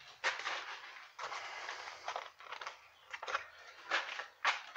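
Irregular rustling and scuffing from hands and a sleeve working close by, as a plastic bottle of brake fluid is picked up, with a few sharp scrapes among them.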